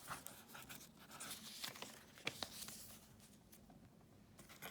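Faint rustling of paper pages being handled and turned in a handmade paper journal, with a scattering of soft clicks, busiest in the first couple of seconds.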